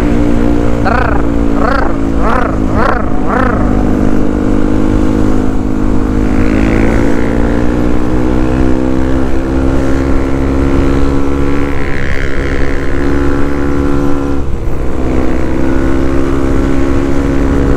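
Yamaha WR155R's single-cylinder four-stroke engine running steadily under way, its pitch climbing slowly over the first few seconds, with a brief break about fourteen seconds in.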